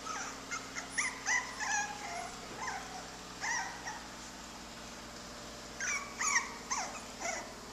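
Teddybear puppies whimpering and yipping in short, high-pitched cries that slide in pitch. The cries come in a run over the first two seconds, a few more around three to four seconds, and another run about six to seven seconds in.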